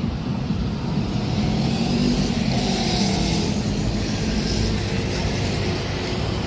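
Street traffic: a car passing by, swelling about two seconds in and easing off, over a constant low rumble.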